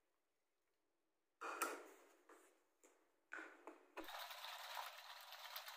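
Yogurt and water being shaken hard in a plastic shaker to make thin buttermilk: a steady, faint rattling hiss from about four seconds in. Before that comes a second or so of silence, then a few short, faint noises.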